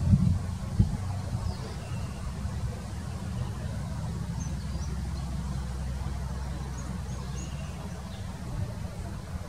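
A steady low rumble with two knocks in the first second. A few faint, short, high chirps come through it now and then, with the goshawk chicks being fed at the nest.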